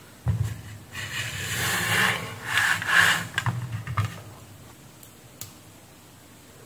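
Scraping and rubbing of a power-supply circuit board being turned over and set down on a worktable, with a few light clicks, dying away after about four seconds. A single light tick follows a little after five seconds.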